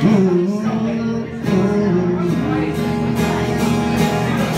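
Live band playing a song: acoustic guitar strummed over electric bass, with a voice holding sung notes that bend in pitch.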